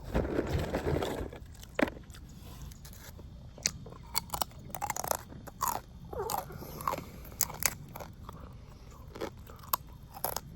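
Close-miked chewing and biting of rotisserie chicken: a dense crunching bite in the first second, then scattered wet mouth clicks and smaller chews.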